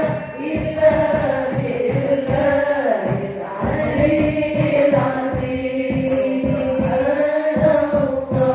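Islamic devotional singing: voices carrying a slow, drawn-out melody over a steady, rapid beat.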